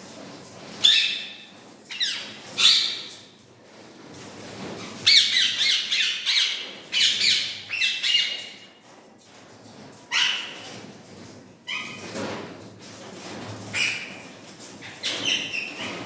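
Indian ringneck parakeets giving loud, harsh squawks again and again, with a quick run of calls from about five to nine seconds in.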